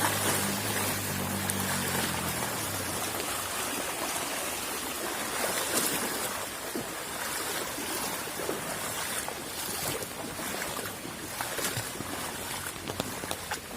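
Floodwater rushing past in a steady wash of noise. A low hum underneath stops about two and a half seconds in.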